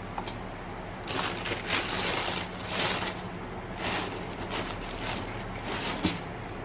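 Thin tissue paper rustling and crinkling in several bursts as it is pulled back from a pair of shoes in a cardboard shoebox, with a short knock near the end.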